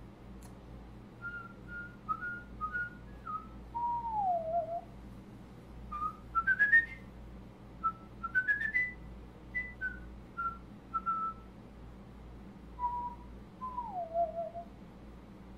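A person whistling a loose tune in short phrases: held notes, quick rising runs and a couple of falling slides, with pauses between phrases, over a steady low hum.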